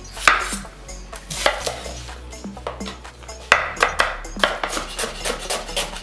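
Chef's knife slicing a red onion on a wooden cutting board: a few separate knocks of the blade on the board, then from about four and a half seconds in a steady run of about three cuts a second.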